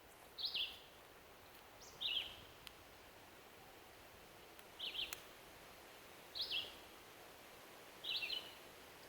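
A songbird calling over and over, five short chirps about every one and a half to two seconds, over faint outdoor background hiss.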